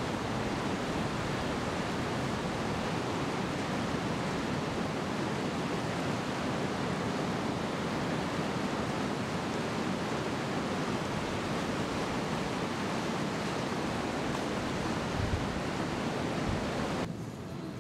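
Heavy ocean surf breaking, mixed with a shallow creek rushing over rocks, a steady dense wash of water noise. A couple of brief low thumps come near the end, and the sound cuts off suddenly just before it closes.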